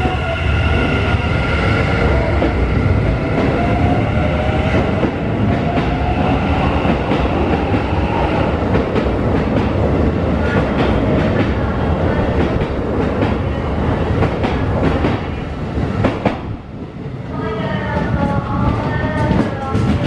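Keikyu 1000 series electric train pulling out of a station, its traction motors whining and rising in pitch as it accelerates, with wheels clattering over rail joints as it gathers speed. About three-quarters of the way through the sound briefly drops, then another train's motor whine comes in.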